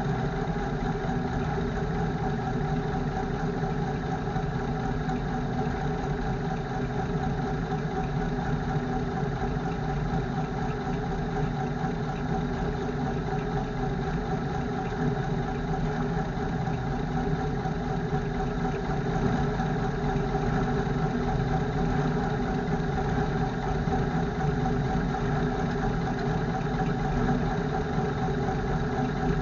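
1952 REO M35 deuce-and-a-half's gasoline six-cylinder engine idling steadily.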